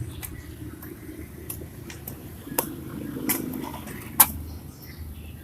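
Metal parts knocking and clicking as they are handled, about five sharp clicks, the loudest about four seconds in, over a low steady background rumble.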